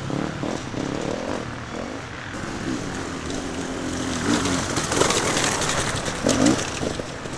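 Enduro dirt-bike engines revving on a rocky trail, the throttle opening and closing so the revs jump up sharply a few times.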